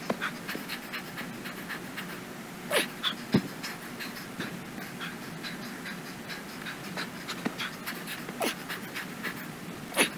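A man breathing hard and fast, panting between heavy dumbbell reps, with a few louder gasps.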